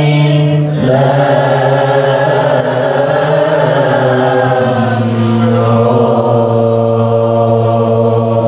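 A man's voice reciting the Qur'an in tilawah style through a microphone and loudspeaker, in the Bayati maqam: a short phrase, then after a brief break about a second in, one long held note that ends near the end.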